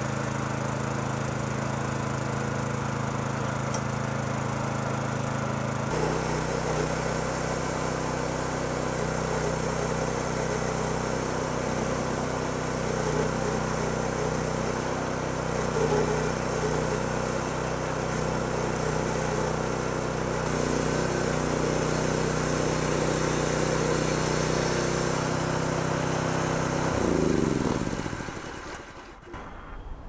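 Homemade bandsaw mill's 6.5-horsepower gas engine running steadily. About six seconds in it speeds up and the band blade saws along a log. Near the end the engine is shut off and winds down to a stop.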